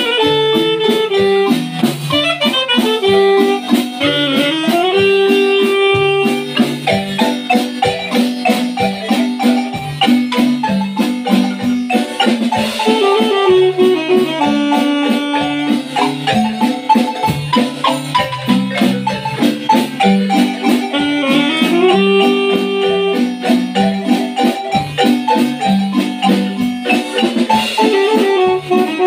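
Marimba played by several players with mallets, a fast run of struck notes, together with an alto saxophone playing held melody notes.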